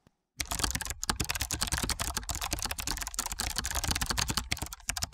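Rapid, continuous keyboard typing clicks, starting about half a second in.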